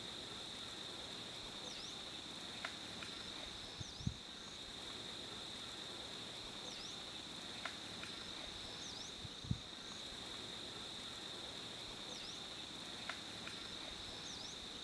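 Insects droning steadily at a high pitch, with a short higher chirp about every two seconds and a couple of soft low thumps.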